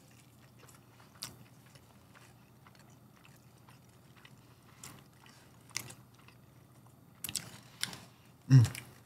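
Close-miked mukbang eating: biting into and chewing a steak burrito and birria tacos, with scattered short wet smacks and crunches that come more often near the end. A brief low vocal sound near the end is the loudest moment.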